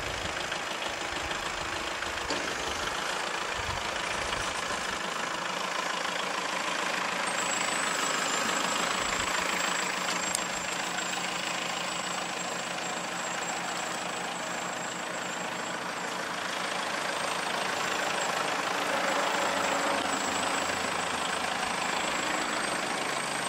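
Kubota compact tractor's diesel engine running at low revs as the tractor is driven slowly across the paved lot.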